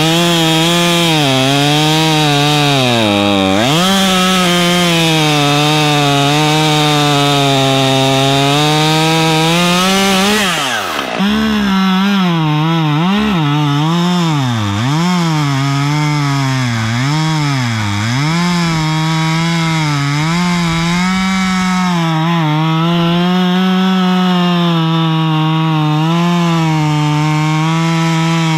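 Husqvarna T540 XP Mark III top-handle chainsaw, a 39 cc two-stroke, running near full throttle while cutting wood, its engine note sagging under load and recovering. About ten seconds in the pitch drops sharply and picks back up, then it dips and recovers repeatedly for several seconds before holding steadier.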